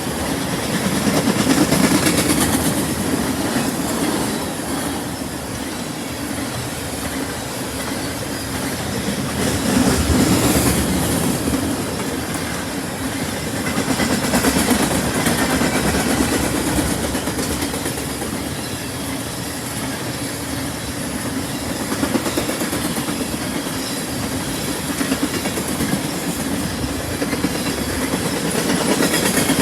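Freight train cars rolling past, their steel wheels clattering over the rail joints. The rumble swells and fades every few seconds as the cars go by.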